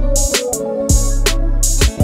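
Background music with a steady drum beat over a sustained bass line.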